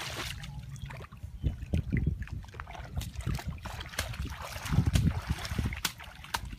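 Splashing and sloshing in shallow muddy water as feet wade and a long-handled hoe chops into it, with irregular low thumps, the loudest about five seconds in.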